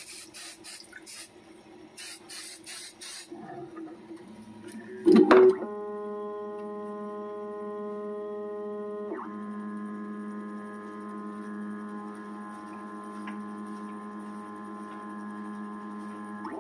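Aerosol hairspray sprayed onto a 3D printer's heated bed in short hisses, two quick groups of puffs. About five seconds in there is a loud clunk, and then the printer's stepper motors whine at a steady pitch, dropping lower about nine seconds in.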